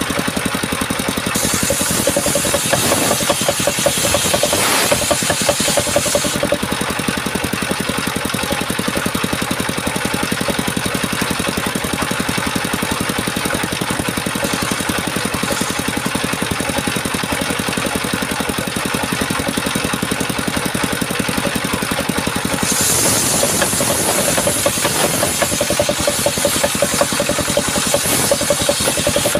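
Power saw running steadily while cutting coconut tree wood. It grows louder and brighter in two stretches, from about a second in to about six seconds, and again from about 23 seconds to near the end.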